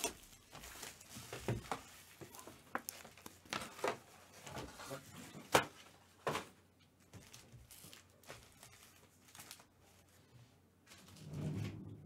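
Foil-wrapped trading card packs crinkling and rustling as they are taken out of a cardboard hobby box and stacked, with irregular sharp crackles and clicks.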